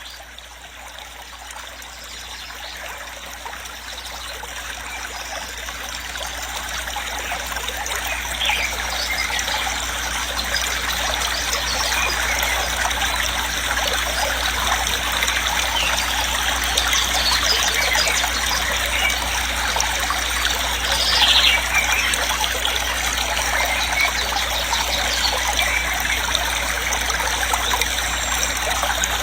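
Waterfall rushing as a steady, dense wash of water noise with a low rumble beneath, fading in over the first several seconds and then holding steady.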